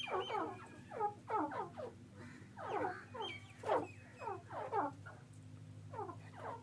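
White francolins (cotton white teetar) giving short calls that slide down in pitch, several overlapping in little runs with short gaps, over a low steady hum.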